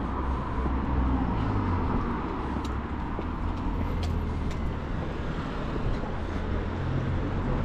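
Street traffic: a steady low rumble of cars on the road.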